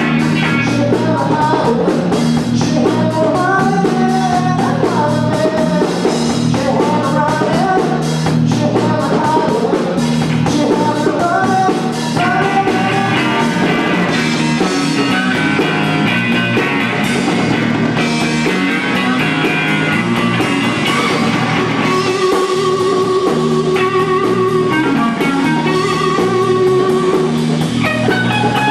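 Rock-blues band playing: singing over guitar and drum kit, with long held notes in the second half.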